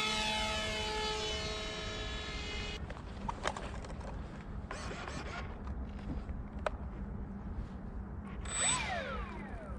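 RC model aeroplane's motor and propeller whining, the pitch sinking slightly as it fades, then cutting off about three seconds in. After that only faint background noise with a few sharp clicks, and a short falling whine near the end.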